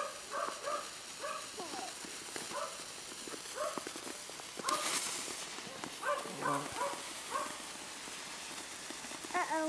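A dog whining and yipping in short, high-pitched calls, repeated at irregular intervals, with a brief hiss about five seconds in.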